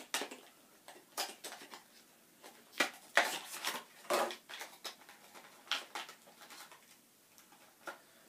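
Cardboard box and plastic packaging crinkling and rustling in irregular short crackles as a fishing lure is unpacked by hand, loudest a few seconds in.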